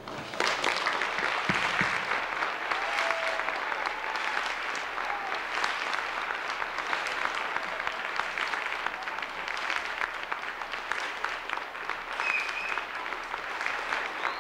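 An audience clapping. It breaks out just after the start and keeps going steadily, with a few short voices faintly over it.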